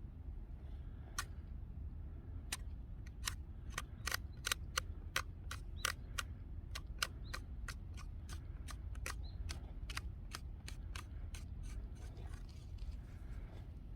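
Hand shears snipping over and over: a run of sharp clicks, about three a second, starting about a second in and stopping near the end.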